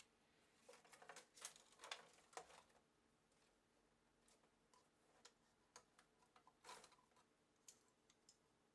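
Faint, irregular clicks and light scrapes of small tools and metal parts being handled while a Fluke 732A voltage reference is taken apart, busiest in the first few seconds.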